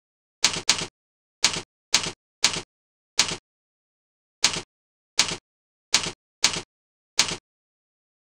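Computer keyboard keystrokes: about a dozen short, sharp clacks at uneven intervals, with dead silence between them.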